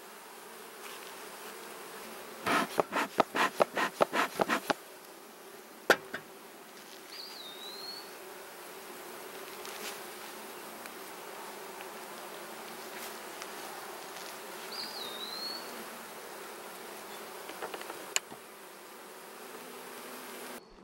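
Honey bees buzzing around an opened hive: a steady, even hum. About two and a half seconds in comes a quick run of about ten knocks, and single sharp clicks follow later.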